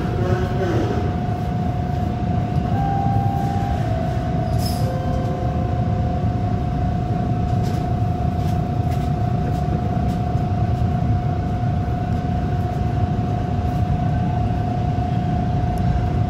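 Bombardier T1 subway train heard from the cab, a steady low rumble with a constant whine throughout, as the train stands at the platform and then pulls out into the tunnel. A few short extra tones sound in the first few seconds.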